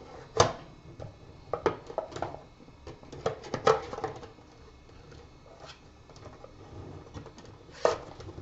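Scattered clicks and light taps from a laptop's keys and buttons being worked. About a dozen come at irregular intervals, the clearest about half a second in, around two seconds and near the end.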